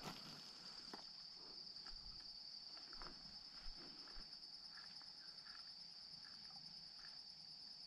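A steady, high-pitched insect trill with a few faint ticks.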